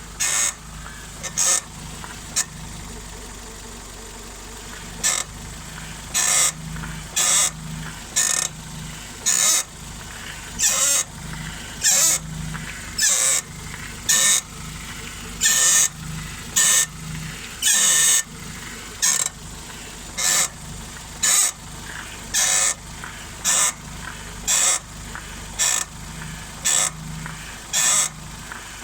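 Ford Focus Mk3 front suspension squeaking over and over: short, loud squeaks about once a second, sometimes two close together, above a steady low hum.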